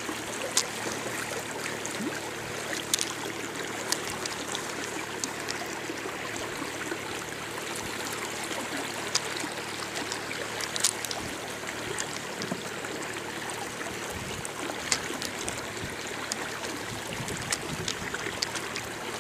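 Water lapping and trickling against a small boat's hull, steady throughout, with scattered small clicks and taps.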